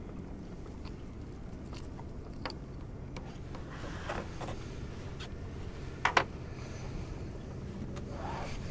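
Faint scraping and small clicks of a blade working in a redfish's gills on a fiberglass boat deck as the fish is bled, over a steady low hum. One sharp knock about six seconds in.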